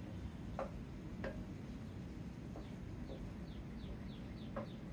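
Faint bird calls: a quick run of short falling chirps after about two and a half seconds, with a few single short calls or clicks before and after.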